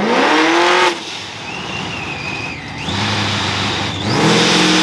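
Drag-racing cars' engines: one revs up hard during a burnout and drops off after about a second, then engines idle at the start line. About four seconds in, one revs up and holds a steady high rev, waiting for the launch.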